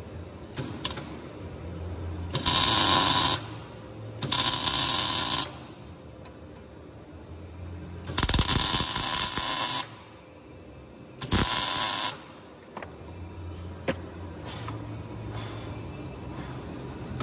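Wire-feed welder arcing in short crackling bursts, four of about a second each with a brief tack before them, as the gear-shift linkage is welded.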